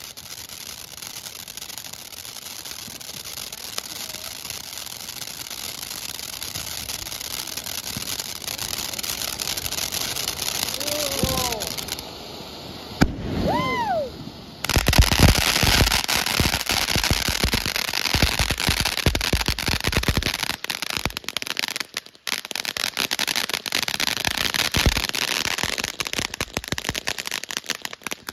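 Consumer ground fountain firework hissing as it sprays sparks, the hiss building for about twelve seconds, then a dense run of rapid crackling pops for most of the rest.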